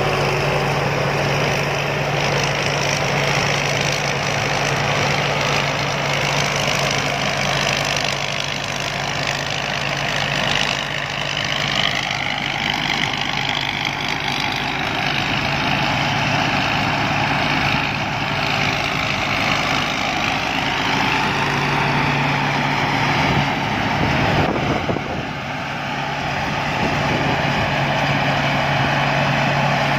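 Rice combine harvester engine running steadily, a continuous heavy mechanical drone. The sound dips briefly about three-quarters of the way through, then returns to the same level.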